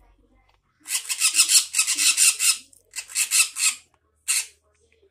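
Rasping, scratchy scraping in three bursts: a long one about a second in, a shorter one near the middle, and a brief one near the end.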